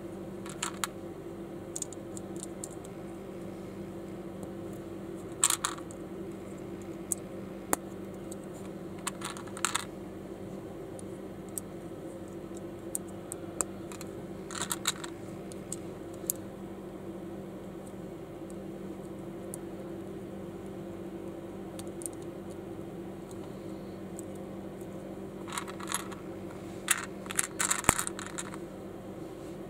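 Small plastic building bricks and minifigure parts clicking and rattling as they are handled, in scattered single clicks and short bursts, the busiest near the end. A steady low hum runs underneath.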